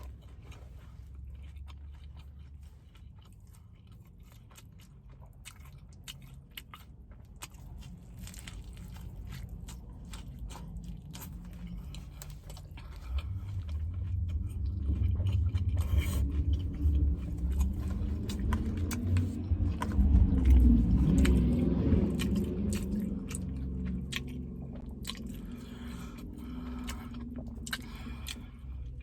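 A person biting and chewing a crunchy crunch wrap filled with fries and Flamin' Hot Cheetos, close to the microphone, with many sharp crunches. The chewing gets louder a little under halfway through, is loudest about two-thirds of the way in, then eases.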